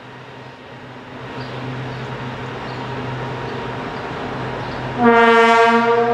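A pair of ST44 'Gagarin' diesel locomotives (Soviet-built M62, two-stroke V12 diesels) passing with a freight train, their low engine drone growing louder as they come by. About five seconds in, a loud horn blast lasting just over a second.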